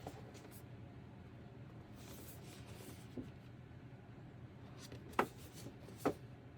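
Handling of action-figure packaging: a soft rustle, a light tick, then two sharp clicks near the end, over a low steady hum.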